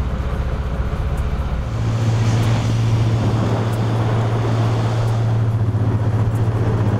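Motor of a sportfishing boat running under way, with water rushing along the hull and wake. The engine note steps up to a higher, stronger hum about two seconds in.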